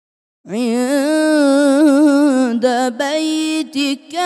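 A young man reciting the Quran in melodic tajweed, chanting into a microphone. About half a second in, he starts a long held vowel ornamented with wavering turns of pitch, then a few shorter phrases broken by brief gaps near the end.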